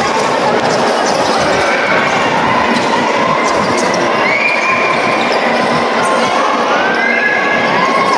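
Basketball game play: a ball bouncing on the court over a steady, loud background din.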